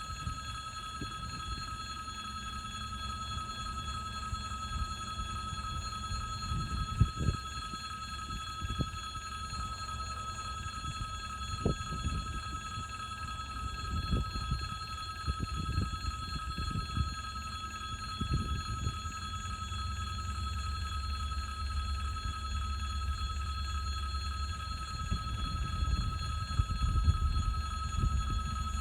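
Low rumble of a 2TE116UD diesel locomotive and its train of gondola wagons, with scattered knocks and clanks, growing a little louder near the end. A steady high-pitched ringing tone runs underneath.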